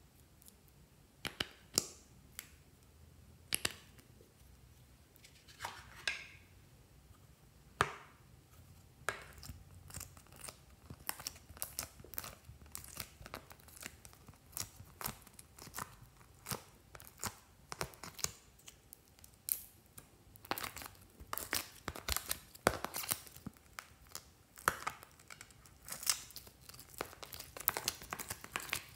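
Sticky slime and foam-bead slime being pulled and pressed out of a plastic paint palette's wells: a run of sharp tearing and crackling sounds. Separate clicks at first; after about ten seconds they crowd into a near-continuous crackle.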